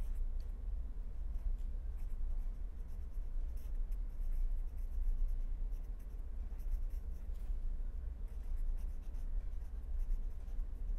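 Pen scratching on paper in short, irregular strokes as words are written out by hand, over a steady low hum.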